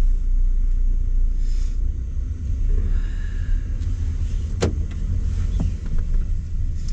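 Steady low rumble with a single sharp click about four and a half seconds in.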